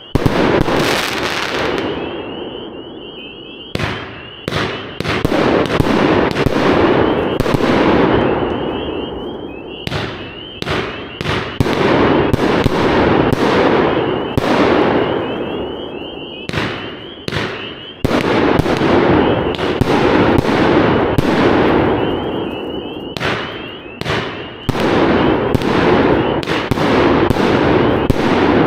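A Fisherman 'White Noise' 26-shot 500 g angled firework cake firing: shots go up one after another in quick runs, each bursting with a loud report followed by dense crackle.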